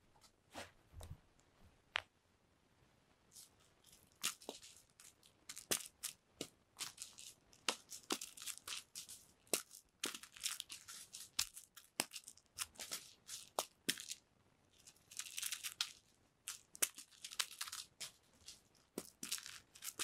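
A cat tearing at a corrugated cardboard scratching pad: a few single ticks, then from about four seconds in, irregular runs of short scratchy ripping strokes.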